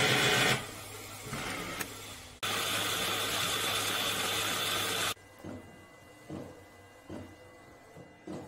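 Portable L8050 DTF inkjet printer at work. Its head-cleaning cycle is a steady mechanical whine that cuts off about half a second in, and the machine runs steadily and louder again from about two and a half to five seconds. Then printing resumes, with soft swishes repeating a little more than once a second as the print carriage sweeps back and forth.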